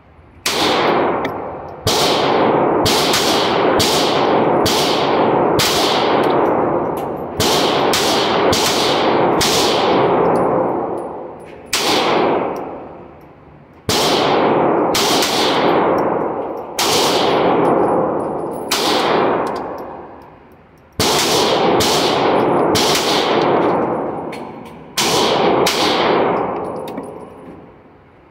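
GSG 1911 .22LR pistol firing semi-automatically on an indoor range, about two dozen shots in quick strings, each shot ringing out with a long echo.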